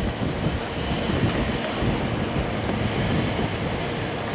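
Wind buffeting the microphone: an irregular low rumble with a hiss above it.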